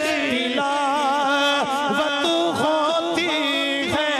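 A man singing a devotional kalam in a chanting style: one voice holding long notes that waver and bend, with few pauses.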